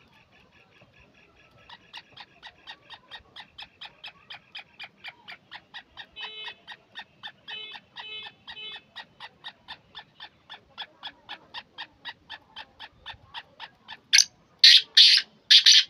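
A fast, even series of ticking notes, about five a second, runs for some twelve seconds. Near the end a caged black francolin gives its loud, harsh call of four notes.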